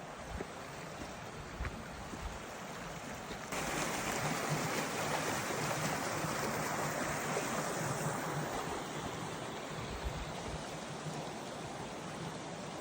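Mountain stream rushing steadily, an even hiss of flowing water that jumps louder about three and a half seconds in.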